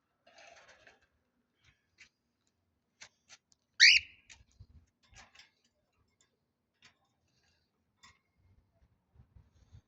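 Parrot giving one loud, brief whistle that sweeps sharply upward about four seconds in, with faint scattered clicks around it.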